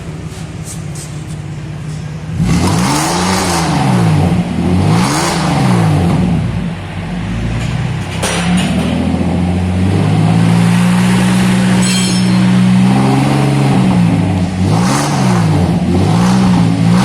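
Chevrolet Omega Fittipaldi's 3.6-litre V6 idling, then revved through a free-flowing exhaust with its intermediate mufflers removed, an H-pipe, and twin turbo mufflers. About two seconds in come two quick blips, then a longer rev held at a steady higher pitch, then two more quick blips near the end.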